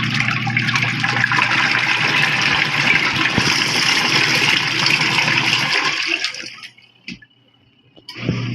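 Mini washing machine running, water churning in its tub over a steady motor hum. It stops about seven seconds in and starts again just before the end.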